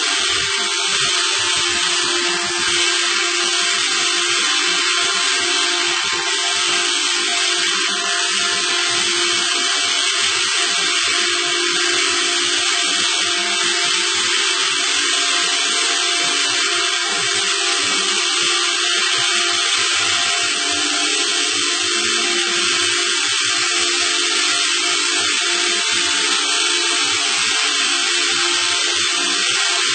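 A steady mechanical whir, an even hiss with a constant low hum underneath, unchanging in level.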